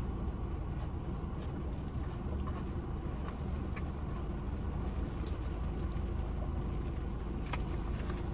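Steady heavy rain, a constant rushing hiss over a low rumble, with scattered light ticks of drops.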